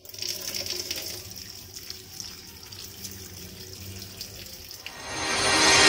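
Thin stream of tap water splashing onto boiled fusilli pasta in a perforated steel colander, rinsing it. About five seconds in, music fades in and soon drowns out the water.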